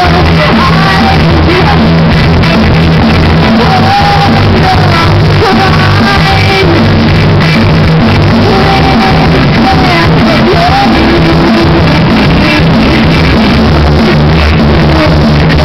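Live rock band playing loud, a woman singing into a microphone over electric guitars and drums.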